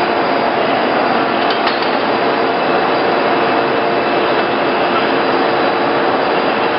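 Heavy-duty lathe running, a loud, steady mechanical noise with a faint steady hum of several tones through it.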